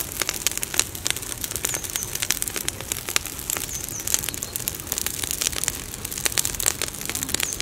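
Open fire of dry leaves and straw burning on a metal sheet, crackling with many sharp, irregular snaps and pops over a steady hiss.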